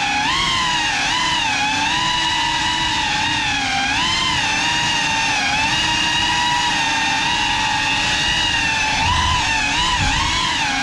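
Small FPV quadcopter's electric motors and propellers whining, the pitch gliding up and down constantly with throttle changes as it manoeuvres.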